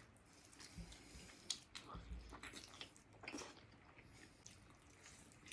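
Faint chewing and wet mouth clicks from someone eating fried chicken, scattered irregularly.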